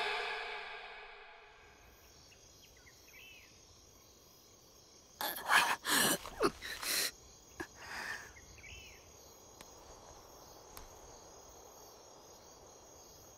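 Crickets chirping faintly in the night as music fades out over the first second or two. About five seconds in, a young man groans and gasps in pain several times over two seconds, with one more short groan near eight seconds.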